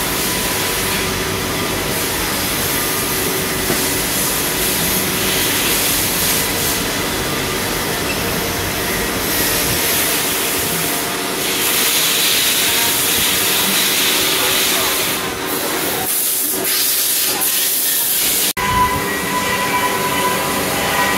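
Machine-shop noise from CNC lathes and machining centres running: a steady hiss with faint whining tones. An abrupt change near the end brings in a clearer steady whine.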